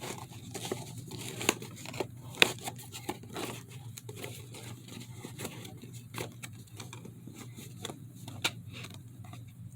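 Rustling and crinkling handling noises with scattered sharp clicks and taps, the loudest about two and a half seconds in, over a faint steady low hum.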